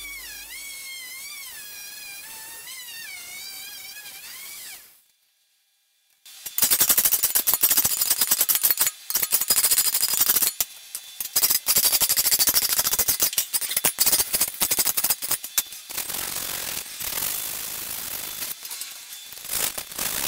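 Music fading out over the first few seconds, then a short silence. Then sandpaper rubbed by hand over a steel machete blade clamped in a vise: a dry, rapid scraping in quick irregular strokes with a few brief pauses.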